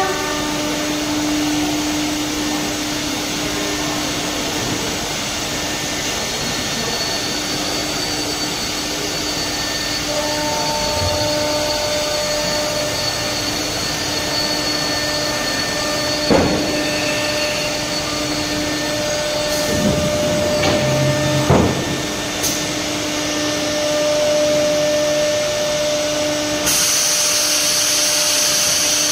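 Fiber cement board grooving and slot milling line running: a continuous hiss with a steady hum, and two or three short knocks a little past halfway. The hiss turns brighter near the end.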